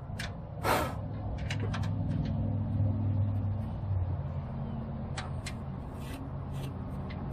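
A low engine-like hum that swells about a second in and then holds steady, with a few light clicks and knocks scattered through it.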